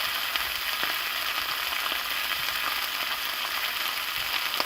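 Beef liver searing in hot bacon grease in a pan, a steady crackling sizzle with small scattered pops.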